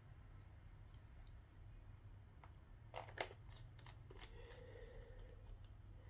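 Faint clicks of small screws being driven into a laptop's plastic bottom panel with a precision screwdriver, over near silence. Two sharper clicks come close together about three seconds in.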